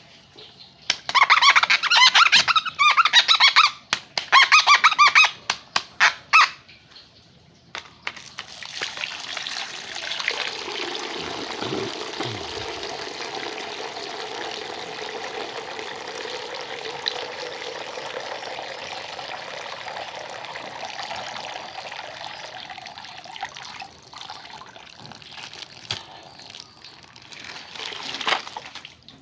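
Several loud, wavering high-pitched bursts over the first six seconds, then water running steadily for about twenty seconds, as from a tap or a pour onto a toy being washed.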